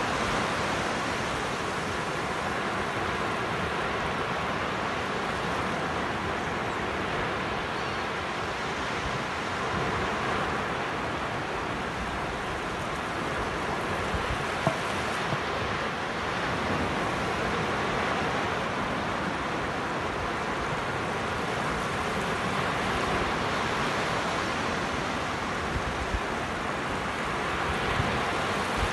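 Sea surf breaking and washing up a sandy beach: a steady rush of water noise that swells and eases every several seconds.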